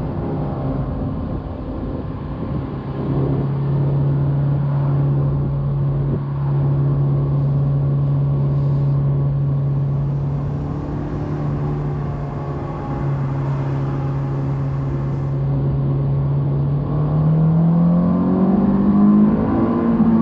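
2001 Honda S2000's 2.0-litre F20C inline-four pulling at a steady engine note under way, over tyre and road noise. In the last few seconds the revs climb as the car accelerates.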